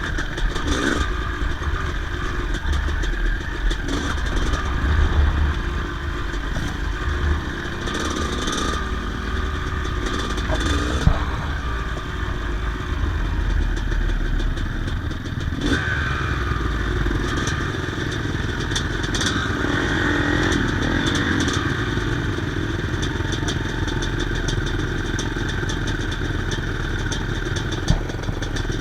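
Yamaha YZ250 single-cylinder two-stroke dirt bike engine running under way, its pitch rising and falling with the throttle. Two sharp knocks cut through, about eleven seconds in and near the end.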